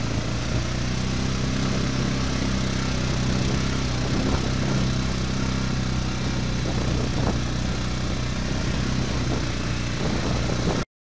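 4x4 ATV engine running at a steady, low engine speed while the quad climbs a rough, rocky dirt trail. It cuts off abruptly near the end.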